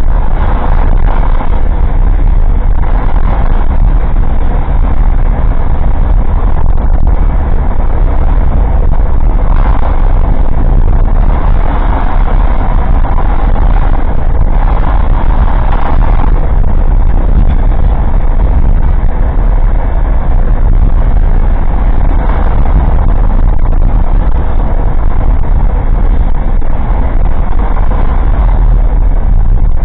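Engine and road noise inside an old Suzuki Jimny kei car while driving, loud and steady, with the rattling of loose parts in the cabin. It sounds dull, as if through a cheap dashcam microphone.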